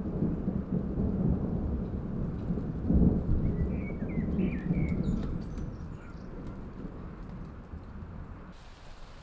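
A long rumble of thunder, loudest about three seconds in, then dying away over the following seconds, with rain falling steadily underneath.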